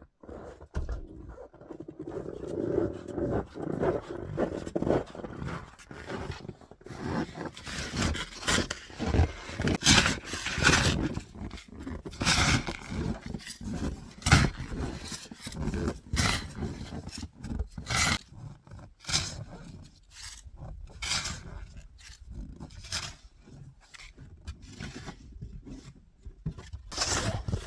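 Footsteps crunching through deep snow, roughly one step a second.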